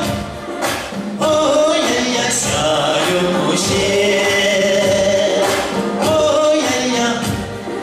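A man singing into a handheld microphone over backing music with a regular beat.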